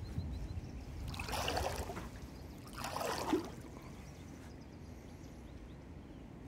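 Two kayak paddle strokes splashing and dripping in the water, about a second and a half apart.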